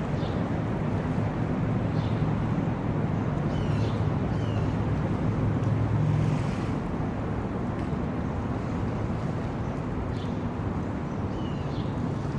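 Wind on the microphone over a steady low hum, with a few short high chirps now and then.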